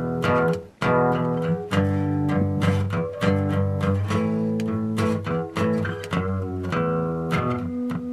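Music played on guitar with bass guitar, a run of plucked notes with a steady beat.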